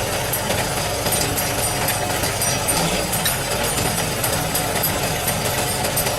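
Heavy diesel machinery running steadily, with a rapid rattling clatter over the engine.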